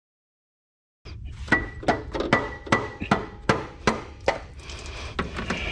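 Metal striking metal: about eight sharp knocks, two or three a second, each with a short ring, starting about a second in. Near the end a steady hiss comes in.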